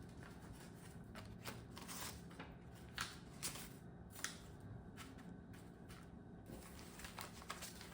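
Paper banknotes being handled and swapped by hand: faint rustling with scattered soft flicks and snaps of the bills, the sharpest about three to four seconds in.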